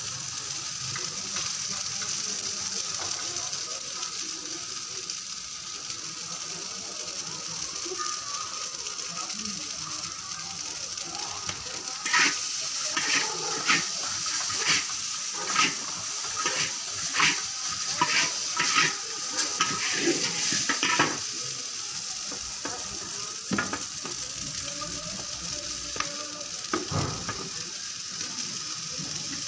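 Noodles and vegetables sizzling in a large flat wok with a steady hiss, while metal spatulas toss them. Through the middle stretch the spatulas clack and scrape against the pan about once or twice a second.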